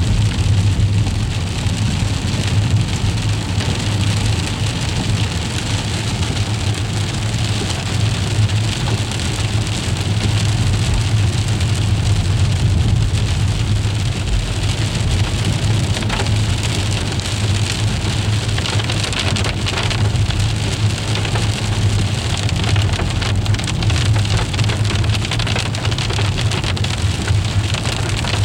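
Freezing rain falling in a steady hiss with fine ticking, over a constant low rumble.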